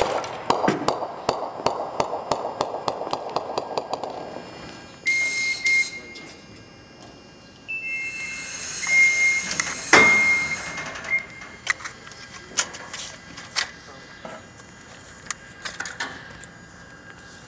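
A 13-pound bowling ball, just dropped from 18 feet through an aircraft video monitor in its test fixture, strikes and then bounces and rolls across the concrete floor with a quick run of knocks and rumble for about four seconds. Scattered handling clicks follow, with one loud knock about ten seconds in.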